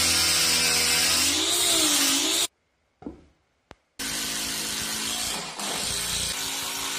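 Angle grinder with a sanding disc working along the edge of a wooden board, its motor pitch wavering up and down with a steady hiss, cutting off about two and a half seconds in. After a short near-silent gap, a cordless drill runs steadily, drilling into a round wooden post.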